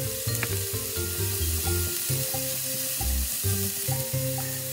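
Minced pork filling with wood ear and shiitake mushrooms, carrot and onion sizzling as it is stir-fried in a pan on the highest heat to dry it out, over background music.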